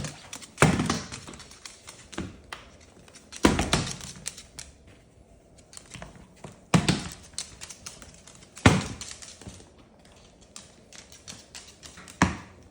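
Sharp knocks and thunks of hard objects, five louder ones a few seconds apart, each dying away, with lighter tapping and clicking between.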